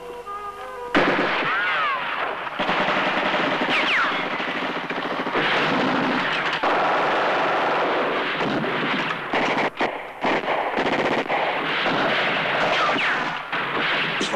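Machine-gun fire, breaking in suddenly about a second in over a few held music notes and going on as a dense, continuous volley, choppier with short gaps in its second half.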